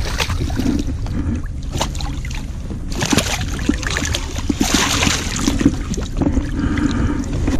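Water splashing and sloshing against a bass boat's hull as a smallmouth bass is released by hand over the side, with the biggest splashes about three and five seconds in, over a steady low rumble.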